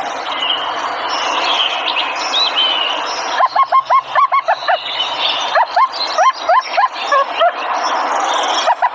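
Songbirds singing: thin gliding whistles at first, then, from about three and a half seconds in, a fast run of short rising chirps, several a second.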